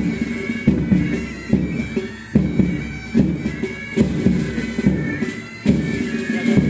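Pipe band playing: bagpipes sound a melody over their steady drones, with a drum beat falling about every 0.8 seconds.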